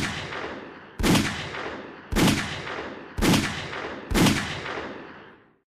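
Five shots from a short-barrelled 9mm pocket pistol firing Federal Hi-Shok 115-grain hollow points, about one a second, each sharp crack followed by a long echo dying away. The sound cuts off suddenly after the fifth shot.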